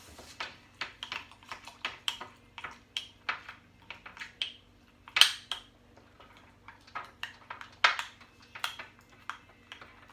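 A utensil tapping and clinking against a mug while mug cake batter is stirred, in irregular clicks about two to three a second, with two louder clinks about five and eight seconds in.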